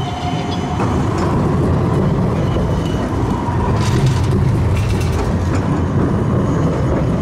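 GVB Siemens Combino tram running by: a steady low rolling noise with a few faint high tones above it.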